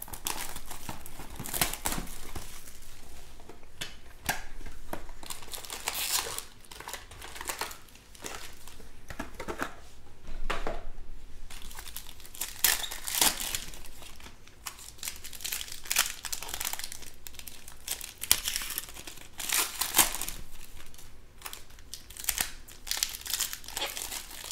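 Foil wrappers of 2020 Panini Chronicles Baseball card packs crinkling and tearing as they are handled and ripped open by hand, in irregular crackly bursts with short pauses between.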